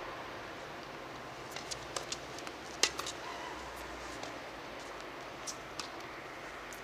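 Sharp, scattered taps of a tennis ball and racket on a hard court between points, the loudest about three seconds in, over a steady outdoor hiss.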